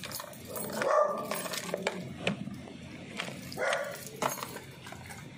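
A dog barks, once about a second in and again past halfway, over small clicks and knocks of a key turning and a plastic motorcycle top box being unlocked and opened.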